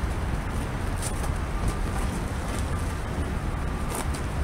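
Steady low rumble of outdoor background noise, wind on the microphone and distant traffic, with two brief sharp taps, one about a second in and one near the end.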